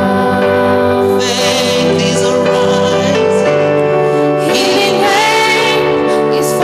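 A gospel worship song: a female voice singing a sustained, wavering melody over held keyboard chords.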